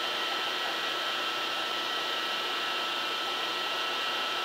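Surface grinder's spindle and diamond wheel spinning: a steady mechanical hiss with a faint even whine.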